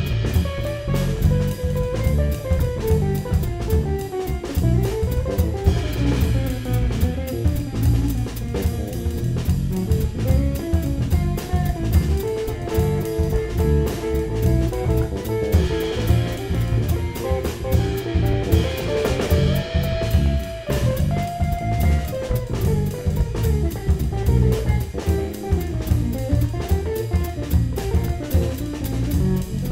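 Jazz-fusion quartet playing: electric guitar carrying a moving lead line over drum kit and electric bass.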